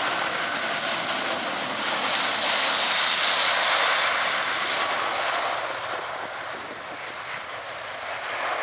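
Boeing 777-200ER's twin Rolls-Royce Trent turbofans at take-off thrust during the take-off roll: a loud, rushing jet noise that swells to its loudest about halfway through as the aircraft passes, then fades.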